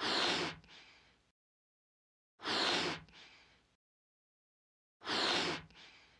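Three puffs of air blowing up a balloon, each a breathy rush of about half a second followed by a softer short hiss, about two and a half seconds apart.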